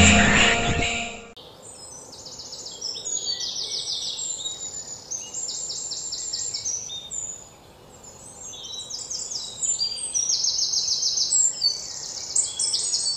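Background music fading out in the first second, then birds calling outdoors: many short, high, rapid trills, repeating and overlapping, thinning out briefly around the middle.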